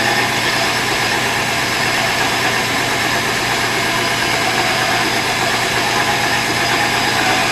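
Milling machine running steadily, its insert end mill cutting a block of cast iron.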